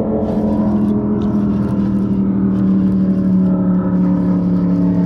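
Boat motor running with a steady hum that slowly drops a little in pitch, while a baitcasting reel is cranked in against a hooked fish, adding short scratchy ticks.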